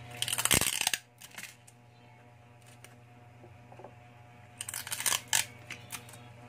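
Tools and small hard objects clattering as they are handled on a workbench: a loud rattle in the first second and a second run of clicks and clinks about five seconds in, over a steady low hum.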